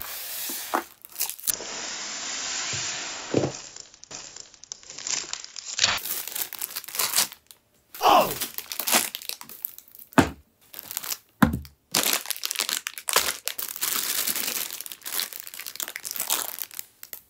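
Plastic film wrap crinkling and tearing as it is pulled off a cup yakisoba container, in repeated rustling bursts with short pauses.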